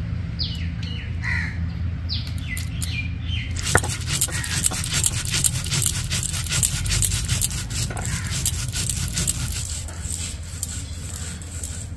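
Stone grinding slab and hand-held stone roller (shil-nora) crushing soaked parboiled rice: a gritty scraping with many quick strokes, starting about four seconds in. Before that a bird calls with a run of short falling notes.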